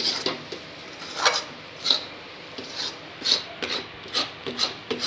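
Flat metal spatula scraping and stirring a thick cashew-and-milk barfi mixture around a steel kadhai in repeated strokes, about one or two a second. The mixture is being cooked down until it gathers into a ball.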